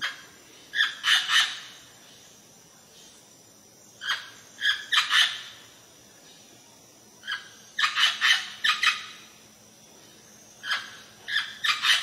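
Parrot giving loud, harsh squawking calls in four bursts of three to six calls each, about three seconds apart.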